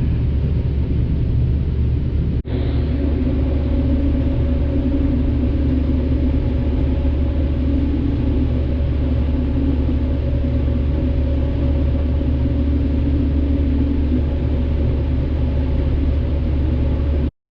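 Combine harvester running, a steady low rumble with a held hum, cut off briefly about two and a half seconds in and stopping suddenly near the end.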